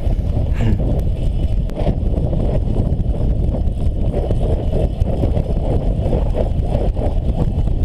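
Steady, loud wind rumble buffeting the microphone of a handlebar-mounted camera as a bicycle descends at speed.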